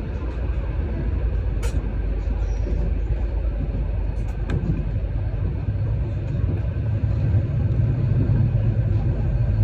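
Steady low rumble of a vehicle in motion, growing slightly louder in the second half, with a few faint clicks.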